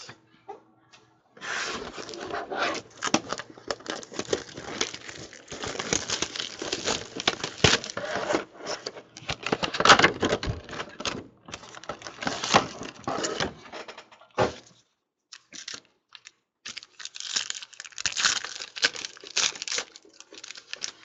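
Foil wrappers of trading-card packs crinkling and tearing as the packs are ripped open, in two long stretches of dense crackling with a short lull in the middle.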